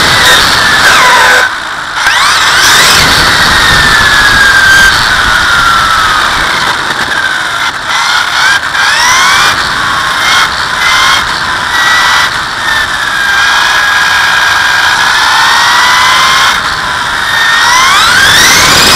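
Castle 1717 brushless motor in a Traxxas Slash 4x4 RC car whining at high speed on 6S power, heard from a camera mounted on the car, over loud tire and road noise. The whine glides down as the car slows and back up as it speeds up, dropping off briefly about a second and a half in and again near the end before rising sharply.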